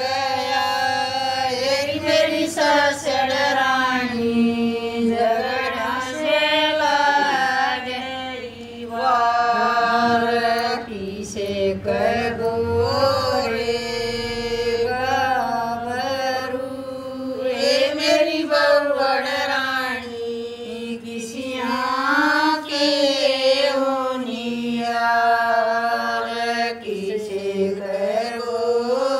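Two women singing a Haryanvi Sawan (rainy-season) folk song unaccompanied, in unison, in long held phrases that bend and waver in pitch, with short breaks for breath between lines.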